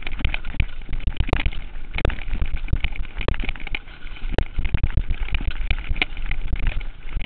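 Mountain bike jolting down rough, rocky singletrack, heard through a chest-mounted camera: a dense, irregular clatter of knocks and rattles over a low rumble, with a few sharper clicks. The camera takes every shock, since the rider's body is not absorbing it.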